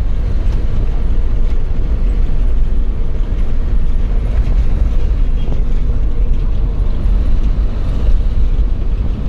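Engine and road noise of a moving road vehicle, heard from on board: a loud, steady low rumble.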